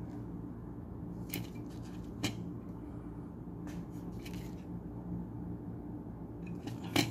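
A printed circuit board being handled on a paper-covered bench, giving a few light clicks and rustles and a sharper click near the end, over a steady low hum.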